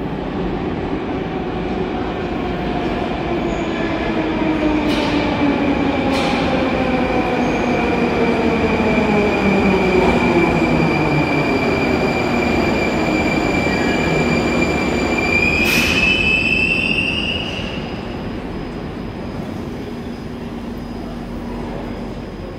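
Moscow metro train braking as it runs into the station. Its motors' whine falls in pitch as it slows, a high squeal rises just before it stops about 17 seconds in, and a few clicks come along the way.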